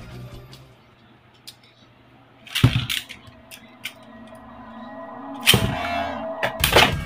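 Beyblade Burst spinning tops launched into a plastic stadium dish: one lands with a sharp clatter about two and a half seconds in and spins with a thin steady whirr, a second lands about five and a half seconds in, and quick clicking clashes start near the end.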